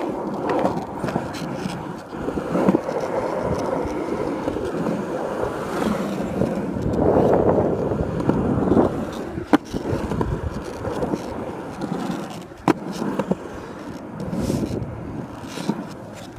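Skateboard wheels rolling steadily, a continuous rumble that swells and eases as the board picks up and loses speed. There is a sharp clack about nine and a half seconds in and another about twelve and a half seconds in.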